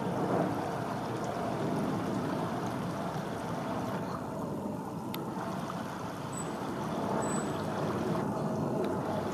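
Steady rush of running river water, an even noise without a beat that goes on throughout.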